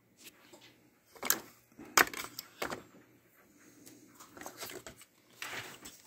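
Hard plastic clicks and knocks as a Shark robot vacuum's wheel motor assembly is handled and its tension spring unhooked: three sharp clicks in the first three seconds, then softer scraping and rattling.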